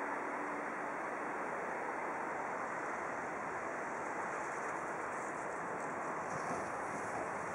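Steady rushing noise of a ČD class 372 Škoda electric locomotive as it starts off, mixed with wind on the microphone.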